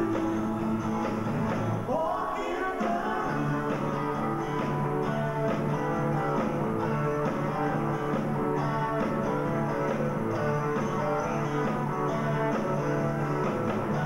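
Live band playing an upbeat rock-and-roll number, with a woman singing lead into a microphone. About two to three seconds in, a rising slide stands out above the band.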